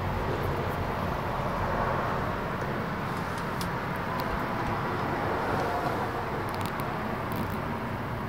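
Steady outdoor background noise of distant road traffic, with a few faint clicks in the middle and near the end.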